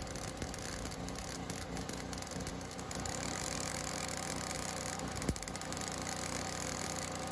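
Flux-core wire-feed welder (Forney Easy Weld 140 FCi) arc crackling steadily as a bead is run on quarter-inch steel tubing, which the welder is too weak to penetrate. A portable generator's engine runs underneath, with one brief click about five seconds in.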